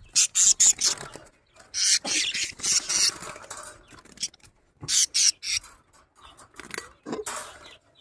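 Small pet parrots squawking harshly in four high-pitched bursts of a second or so each, the alarm calls of birds being caught by hand.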